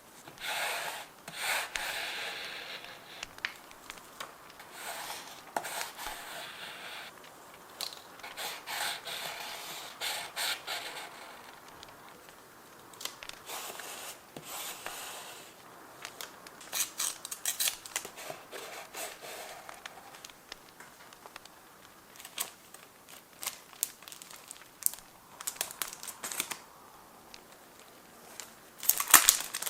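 Paper and journaling materials handled close to the microphone: rubbing, rustling and crinkling in irregular strokes and clicks, with a louder flurry near the end.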